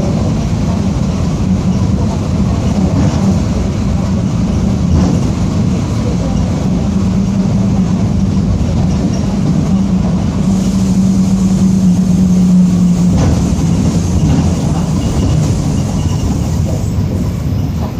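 Mercedes-Benz OF-1722M city bus under way, heard from on board: a steady rumble with a low drone from the rear differential, which growls, the sign of a worn differential. The drone grows stronger a little past the middle, then drops away about two-thirds of the way through.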